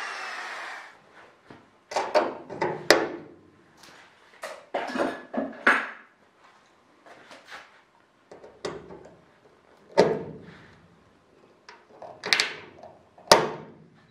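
A small motor spins down to a stop in the first second. Then come irregular metallic clicks and clatters in short bursts, with three sharp, louder snaps, as sheet-metal clecos are worked with cleco pliers along an aluminium wing skin.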